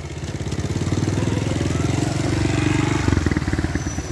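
Small motorcycle engine running close by as the bike pulls away, a fast, even putter. The note shifts about three seconds in.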